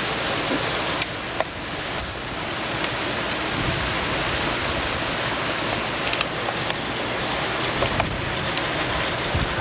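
Rain from a tropical storm pouring steadily, with a few sharp ticks of drops striking close by.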